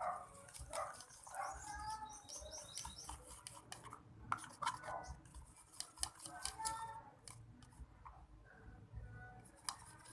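Dog whining and yapping in short bursts, over sticky clicks and squelches from slime being stirred in a bowl.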